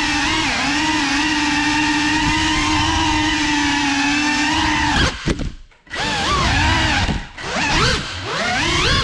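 Cinelog35 cinewhoop FPV drone's brushless motors and props whining at a steady pitch, then cutting out briefly about five seconds in and spooling back up with quick rising and falling pitch changes as the throttle is worked.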